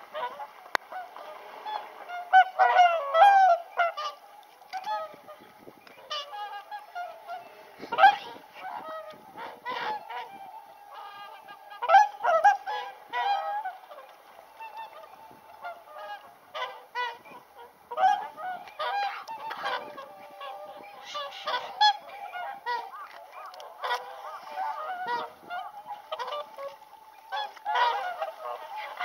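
A flock of whooper swans calling, many calls overlapping, with louder bursts of calls every few seconds.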